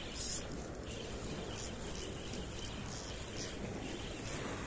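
A 4000-size spinning reel cranked steadily, its gears whirring and faintly ticking, as a hooked fish is reeled in after the strike. Steady outdoor noise sits under it.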